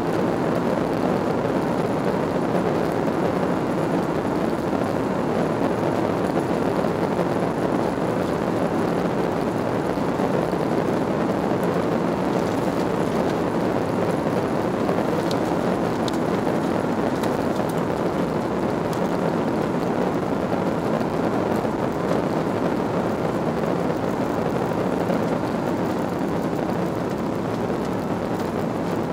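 Steady noise of an Airbus airliner's jet engines and rushing air heard inside the passenger cabin during the climb after takeoff.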